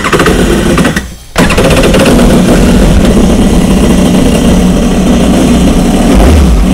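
Kawasaki jet ski engine catching and running loud and steady after a hard start. It drops out briefly about a second in, then picks up again. Water had got inside the hull and fuel had not yet reached the system, which made it hard to start.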